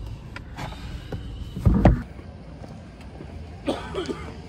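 Low steady rumble inside a car, broken by a single loud thump about two seconds in. After that the background is quieter, with a brief, fainter sound near the end.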